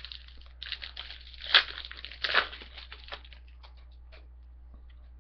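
Plastic wrapper of a trading-card pack crinkling and being torn open, with two sharp rips about a second in and near the middle, then a few light clicks as the cards are handled.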